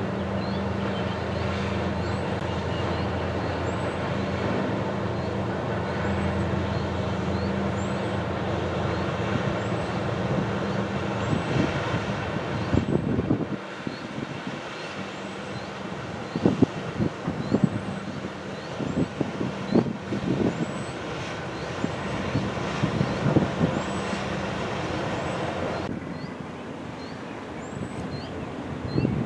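Steady low drone of a passing container ship's diesel engines, with a couple of fixed hum tones. From about halfway, gusts of wind buffet the microphone in irregular thumps.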